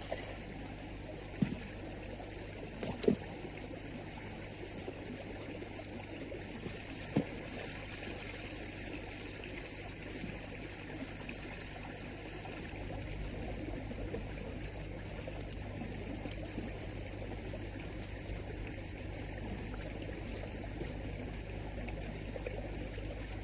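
Shallow stream water trickling and flowing steadily, with three brief splashes in the first eight seconds as hands reach into the water.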